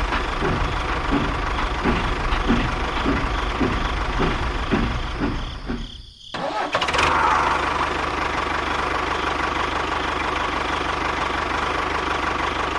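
An engine running with a rhythmic knock, about two to three beats a second. It breaks off briefly just after six seconds, then runs on steadily.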